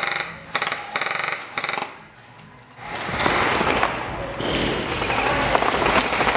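Airsoft rifle firing several short bursts of rapid shots, then a dense, continuous din of mixed noise from about three seconds in.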